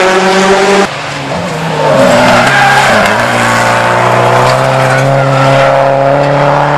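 Rally car engines at high revs, the sound jumping to another car about a second in. The Subaru Impreza rally car's engine drops and climbs in pitch, then holds a steady high note for the last few seconds.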